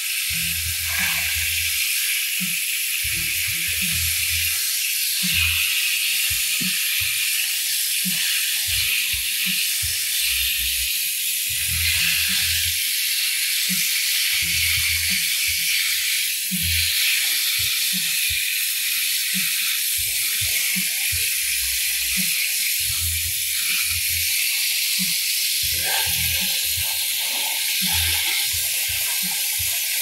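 Water spraying in a steady hiss from a hose spray nozzle, the jet striking plastic toy trucks and washing mud off them.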